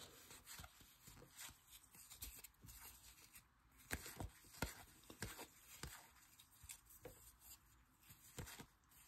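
Faint, irregular soft clicks and slides of baseball trading cards being thumbed off a hand-held stack one at a time, roughly one or two a second.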